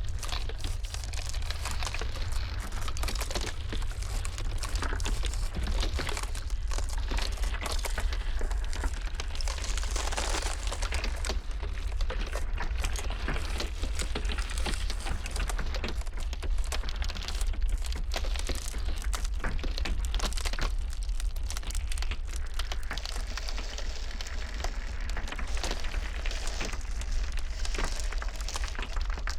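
Ice crackling and snapping in a dense, continuous stream of small cracks over a steady low rumble.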